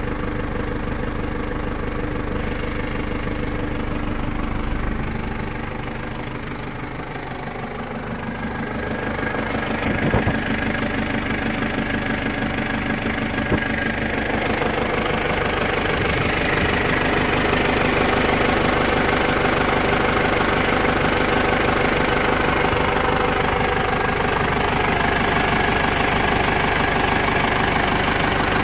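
Toyota Land Cruiser 40-series engine idling steadily, heard from underneath at the exhaust pipe. It grows louder about a third of the way in, with a couple of light knocks.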